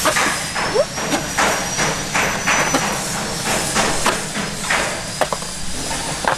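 Skateboard wheels scraping and rolling on concrete in short back-and-forth swishes, about one every half second, with light knocks as the front wheels come down: tic-tac practice, the board swivelled right and left on its back wheels.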